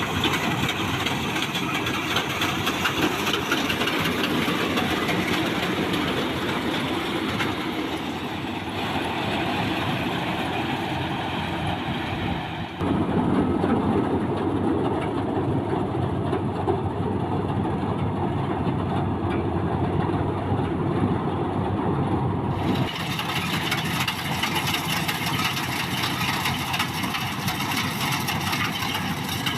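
Maxxi Bimo 102 combine harvester running steadily. About thirteen seconds in, the sound becomes louder and duller for about ten seconds, then returns to its earlier brighter tone.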